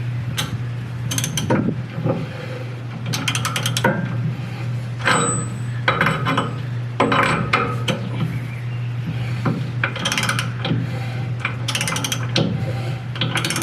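Ratchet wrench clicking in repeated short strokes, turning the differential's pinion so the new ring and pinion gears roll through the marking compound for a gear contact pattern check.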